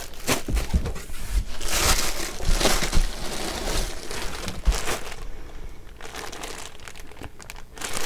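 Plastic packaging crinkling and rustling as items are handled and unwrapped, with many small crackles; it is busiest for the first five seconds and quieter after.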